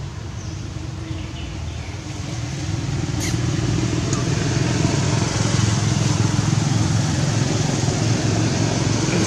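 An engine running at a steady low pitch, growing louder about three seconds in, with a steady hiss over it.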